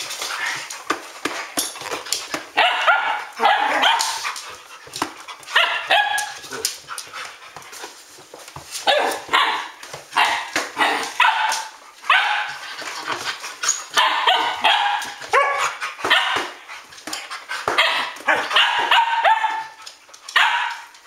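Standard poodles barking over and over in clusters of short, loud barks with brief pauses between.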